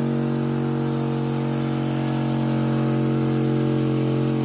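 Ram 1500's Hemi V8 held at steady revs during a burnout: one constant, unwavering engine drone over a hiss.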